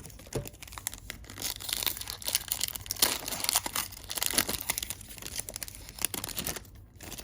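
A 2020 Donruss Optic Football hobby pack's foil wrapper being torn open and crinkled by hand, a run of crackling and rustling with many small snaps.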